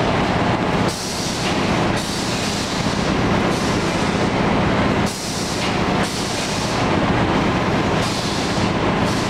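Automatic side sealer and heat-shrink tunnel packaging line running: a steady machine drone with a constant low hum under a broad rushing noise, which dips briefly a few times.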